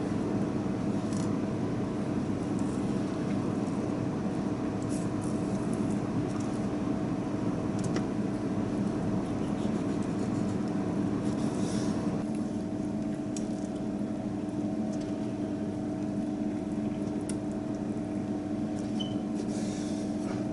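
Steady machine hum of kitchen equipment, with a few faint clicks of a knife against a plastic cutting board as mackerel fillets are trimmed.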